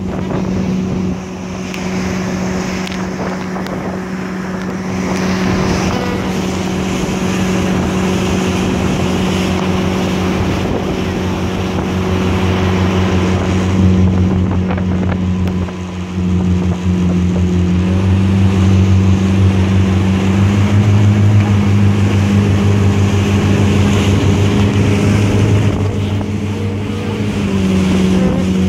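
Motorboat engine running steadily under load while towing an inflatable tube, over rushing water from the wake and wind noise. The engine's pitch rises slightly in steps past the middle and drops back near the end.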